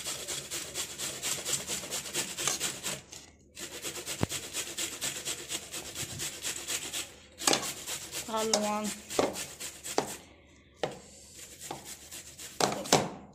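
Perforated steel potato masher pressing and scraping boiled potatoes in a plastic bowl, in quick repeated strokes that pause briefly twice and thin out near the end.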